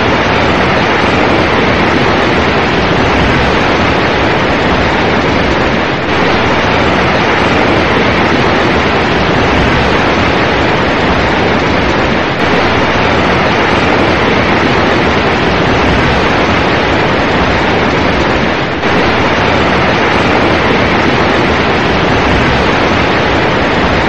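Large waterfall: heavy water pouring and crashing steadily, a loud, dense, unbroken rush.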